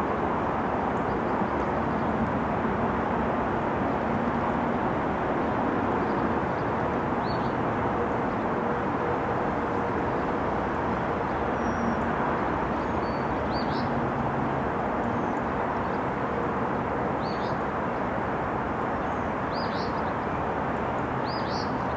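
Steady distant outdoor rumble. Small birds chirp a few times, more often toward the end.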